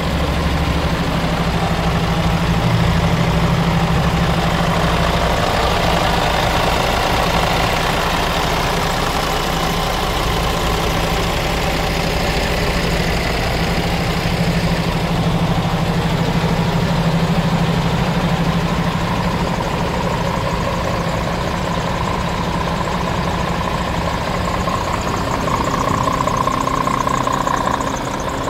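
Scania R410 tractor unit's inline-six diesel engine idling steadily, a constant low hum.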